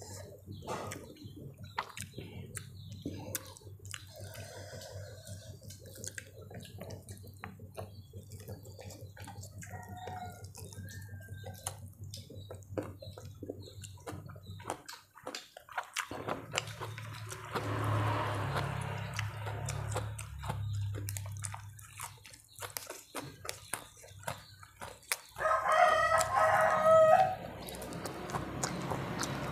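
Close-up eating sounds: wet chewing and lip smacks while rice and noodles are eaten by hand. About 25 seconds in, a rooster crows loudly for about two seconds.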